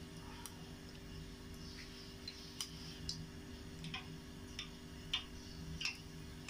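Oil warming with whole cloves in a small metal pot, heated only short of a boil: small irregular crackles and pops, about two a second, over a steady low hum.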